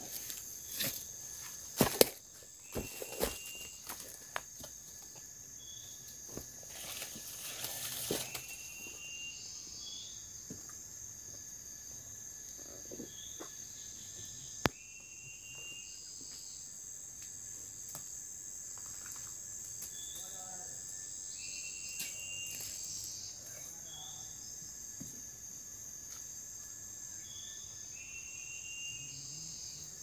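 Steady high drone of forest insects, with short high chirps repeating every two seconds or so. Knocks and rustling come in the first eight seconds, and a single sharp click about halfway.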